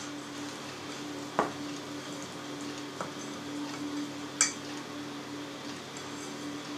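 Hands stretching and folding soft sourdough bread dough in a bowl, the stretch-and-fold done during the dough's rise. Quiet handling sounds with a few short knocks against the bowl, the sharpest about a second and a half in and about four and a half seconds in, over a steady low hum.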